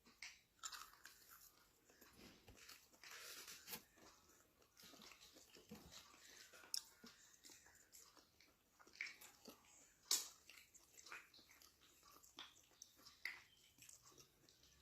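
A person eating close to the microphone: irregular bites, crunches and chewing sounds. The sharpest crunch comes about ten seconds in.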